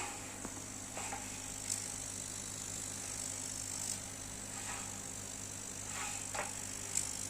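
Homemade CO2 laser cutting and engraving machine running: a steady low hum under a high hiss, with a few light clicks and taps.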